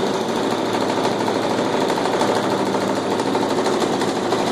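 Small weeder engine running steadily at a fast even rate, spinning a large 18-inch propeller on a test stand.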